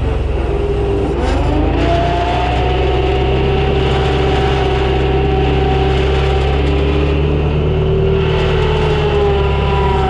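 New Holland L775 skid steer's engine running steadily, with a whine that rises in pitch about a second in and then holds.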